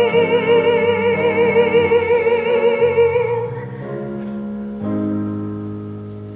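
A singer holds one long high note with vibrato over a musical accompaniment. The note ends about three seconds in, and the accompaniment carries on with sustained chords.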